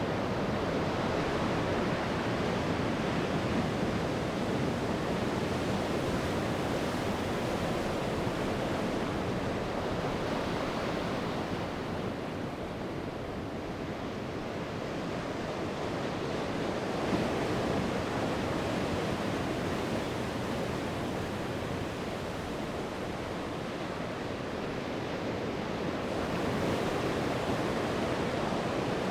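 Sea waves breaking and washing on the shore, a continuous surf that swells and ebbs slowly, easing off twice before building again near the end.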